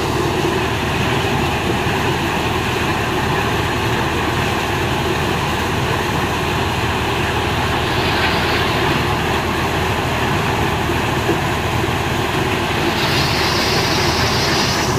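Tractor-driven maize thresher running at working speed, the John Deere 5310's diesel engine under steady load mixed with the thresher's whirring drum and hiss of shelling corn. The hiss brightens briefly about eight seconds in and again near the end.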